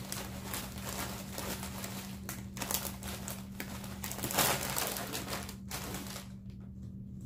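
Plastic Doritos chip bag crinkling and rustling as it is handled, in irregular bursts that are loudest about four and a half seconds in and ease off near the end.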